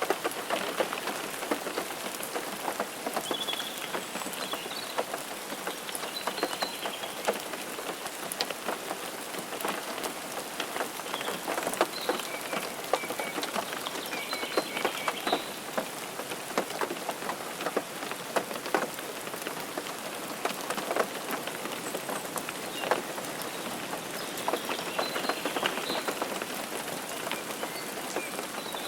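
Steady rain falling, an even hiss full of separate drops ticking sharply onto a surface.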